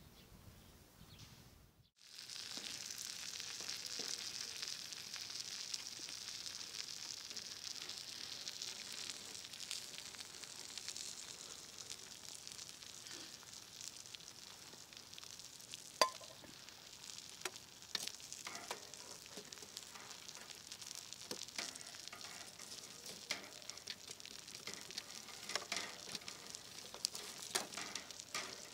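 Steak and vegetables sizzling in a frying pan on a grill over a wood fire, a steady hiss that starts suddenly about two seconds in. Scattered sharp clicks run through it.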